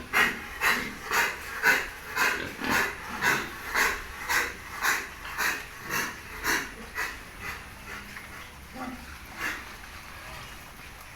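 A pig giving short, noisy squealing grunts in a steady rhythm of about two a second, growing fainter and dying away about nine seconds in.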